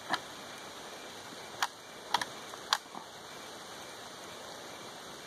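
A handful of short, sharp metallic clicks from an M1A rifle's action being worked by hand, over a steady outdoor hiss. The plastic training rounds do not cycle the semi-automatic action by themselves, so it has to be cycled manually.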